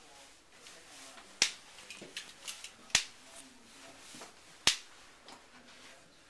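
Small silver toy pistol snapping three times, about a second and a half apart, with lighter clicks in between.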